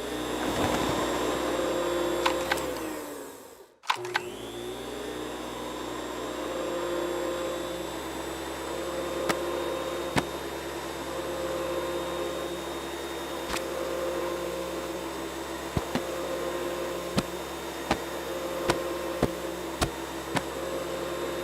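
Cartoon sound effect of a household machine's motor whirring: it spins up, stops briefly about four seconds in, spins up again and runs steadily, with scattered clicks.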